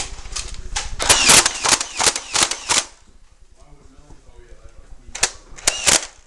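Nerf dart blasters firing: a rapid, irregular string of sharp plastic clacks for about three seconds, then two more clacks near the end.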